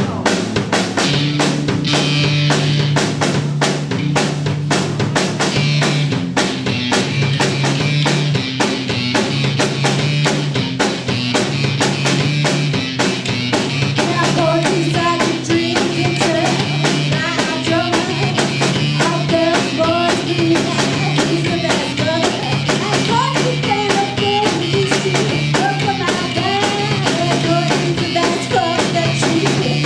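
Live rock band playing a song: a steady, driving drum-kit beat with bass guitar and electric guitar. A woman's lead vocal comes in about halfway through.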